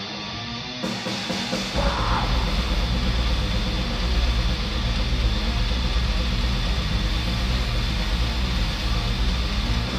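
Black metal band playing live. A lone distorted guitar comes first, the drums and cymbals crash in about a second in, and heavy bass and kick drums fill the low end from about two seconds on in a dense, continuous wall of sound.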